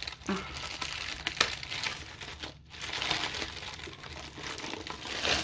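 Clear plastic wrapping crinkling and rustling as a rolled diamond-painting canvas is handled and unwrapped, with irregular small crackles throughout.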